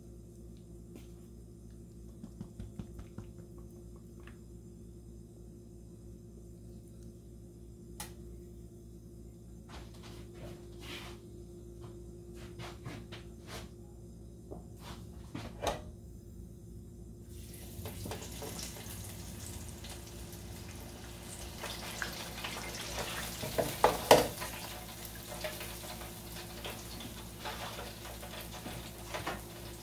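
Faint light clicks and rustles over a low hum. A little over halfway in, hot oil in an electric deep fryer starts sizzling suddenly and keeps up a steady hiss, with a few sharp clatters a few seconds later.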